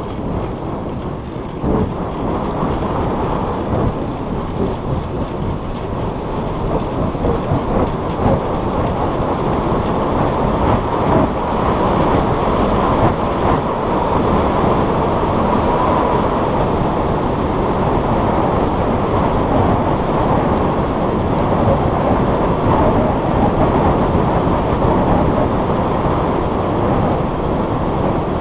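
Wind buffeting the microphone of a camera carried on a moving bicycle: a dense low rumble that grows louder over the first ten seconds or so and then holds steady.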